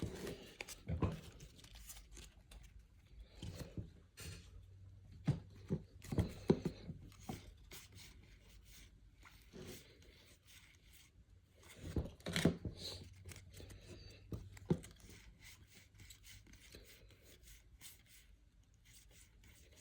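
Baseball cards being flipped through by hand: scattered soft slides, rustles and clicks of card stock, some louder than others.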